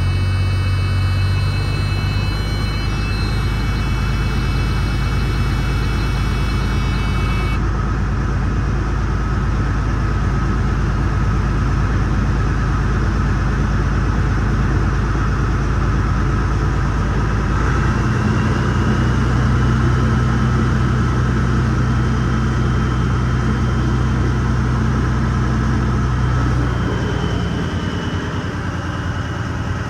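Heavy-truck diesel engine of a Freightliner Classic running at idle, its engine fan locked on through a freshly replaced fan clutch. About eighteen seconds in the engine note steps up to a faster speed, and it drops back near the end.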